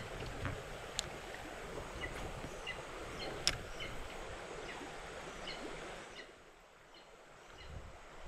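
Shallow river water running over rocks, with short high chirping calls scattered through it, taken for an eagle calling. Two sharp clicks come about one second and three and a half seconds in, and the water noise drops away about six seconds in.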